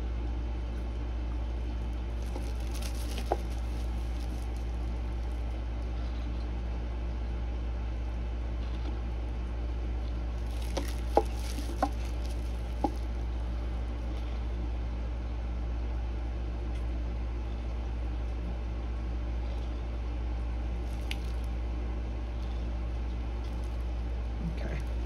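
Steady low hum, with faint squishy handling noises and a few light clicks from plastic cups and stir sticks as the last of the epoxy resin is worked out of the cups. Three of the clicks come close together about halfway through.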